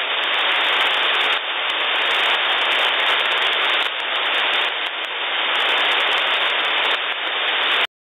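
Steady hiss of HF band static from a Winradio Excalibur Pro SDR receiver tuned to the 5616 kHz Gander oceanic air-traffic channel. The channel is open with no one transmitting, and the audio is limited to a narrow voice passband. It cuts off abruptly just before the end.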